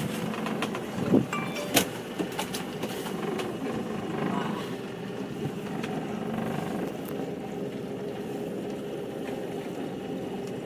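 Boat engine running steadily, with a couple of sharp knocks about one and two seconds in.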